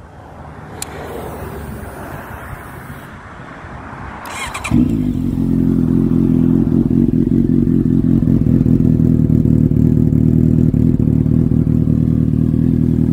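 Honda CB650F inline-four motorcycle engine with a 2-inch carbon slip-on exhaust. After a few seconds of quieter mechanical whir, the engine starts about five seconds in and settles into a loud, steady idle.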